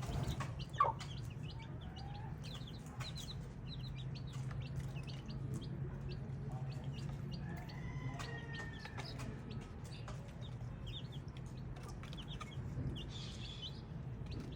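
Baby chicks peeping: a constant scatter of short, high, falling chirps, with a louder, lower call about a second in and a longer pitched call around eight seconds. A steady low hum runs underneath.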